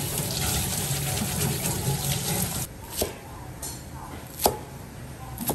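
Tap water running steadily over green onions being rinsed in a stainless steel sink. About halfway through the water gives way to three sharp knocks of a cleaver on a white plastic chopping board, the middle one the loudest.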